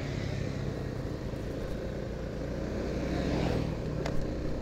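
Steady engine hum and road noise from a vehicle driving along a road. The noise swells about three seconds in, and there is a sharp click near the end.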